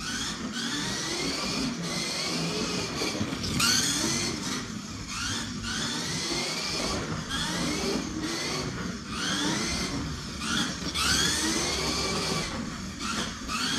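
Kyosho Mini-Z MR-03 RWD 1/28-scale RC car's electric motor and gears whining as it laps the track. The whine rises in pitch as the car accelerates and drops away off throttle through the turns, over and over, about every two seconds.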